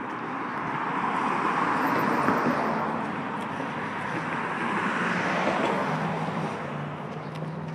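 Road traffic: cars passing on a multi-lane street, their tyre and engine noise swelling twice as vehicles go by. A steady low hum comes in near the end.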